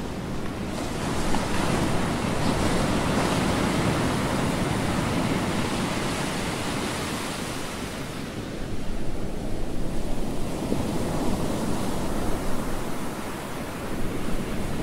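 Sea surf: waves breaking and washing in, a steady rush that swells and eases, dropping back a little about halfway through before building again.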